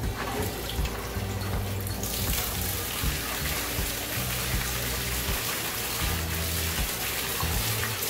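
Pump-fed artificial waterfall in a glass paludarium starting up: water begins pouring from a pipe outlet about two seconds in, then falls down the back wall and splashes steadily into the pool below, landing on one spot.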